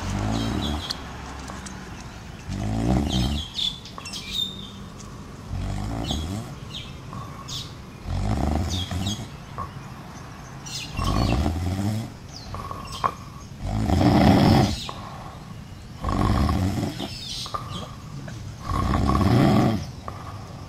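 Sleeping monkeys snoring: a loud, low, rattling snore about every two and a half to three seconds, about eight in all. Short high chirps come between the snores in the first half.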